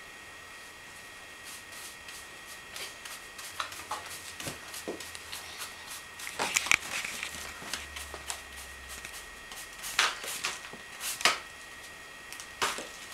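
Small hand brush scraping and sweeping loose dirt and grit on a floor in irregular strokes, the loudest strokes in the second half.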